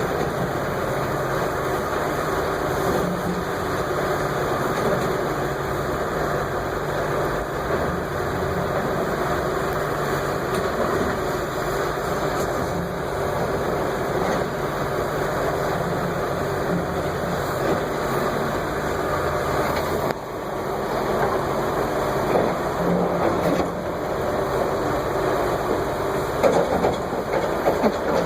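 Heavy equipment engine running steadily, with a few brief louder clatters near the end.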